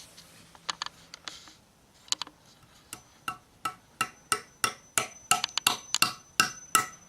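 Hammer driving nails into a wooden 4x4: a few light taps, then from about three seconds in a steady run of sharp blows about three a second, each with a short metallic ring.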